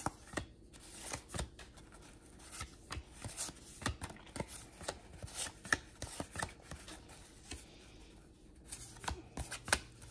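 1991-92 Fleer basketball trading cards being flipped through by hand: irregular soft taps and slides of card against card, several a second, as each card is moved off the stack.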